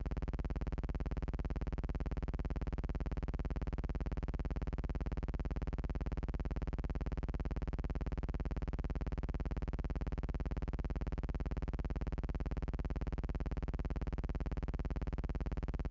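Steady buzzing hum with many overtones, unchanging in pitch and level; it cuts in suddenly from silence at the very start.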